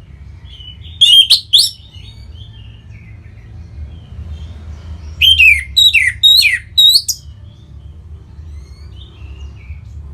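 Orange-headed thrush singing: a loud phrase of three quick descending notes about a second in, and a longer run of similar sharp notes from about five to seven seconds in, with softer twittering notes between. A steady low hum sits underneath.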